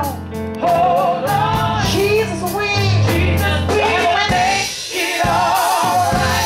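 A gospel song performed live: a woman singing long held notes with a wide vibrato into a microphone, backed by keyboard and a drum kit with steady cymbal strokes.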